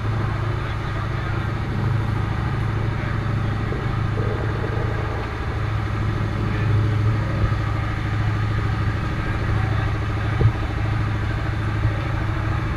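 A dive boat's engine running steadily under way, a constant low drone, mixed with the rush of the wake along the hull. A single brief knock about ten seconds in.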